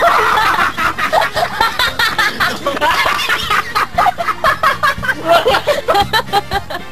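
People laughing and snickering in quick, repeated bursts.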